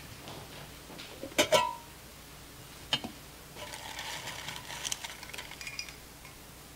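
A couple of sharp knocks, the loudest about a second and a half in with a short ringing tone after it, another knock near three seconds, then a few seconds of rustling with light clinks: objects, among them the altar book, being handled and set down on a wooden church altar.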